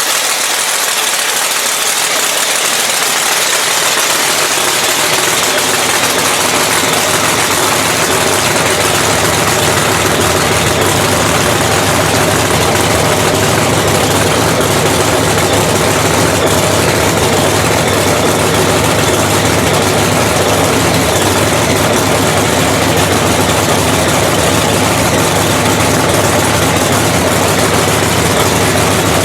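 Supercharged Hemi drag-racing engine, freshly rebuilt, idling steadily and loudly; its low end fills in over the first few seconds, then it holds an even idle.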